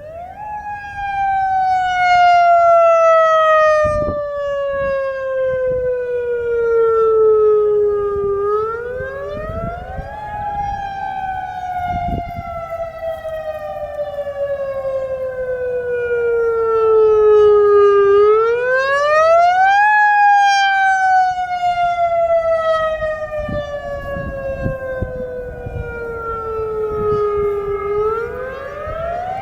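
Federal Signal EOWS 612 electronic outdoor warning siren sounding the attack signal during a test. Its tone starts at the outset, falls slowly for about eight seconds, then sweeps quickly back up, in a cycle that repeats three times.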